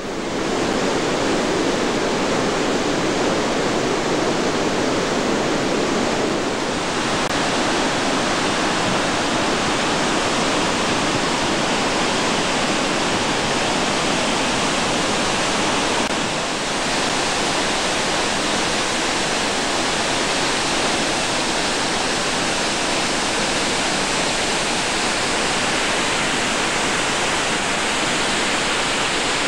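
Large waterfall plunging through a rocky gorge: a loud, steady rush of falling water, dipping slightly twice.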